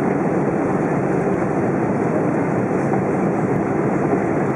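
Steady cabin noise inside an Airbus A320 taxiing after landing: the engines at idle and the rumble of the aircraft rolling along the taxiway, heard from a passenger seat.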